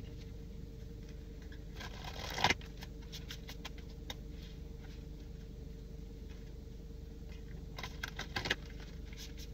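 Steady low hum inside a car, with a brief rustle about two seconds in and a few soft clicks near the end.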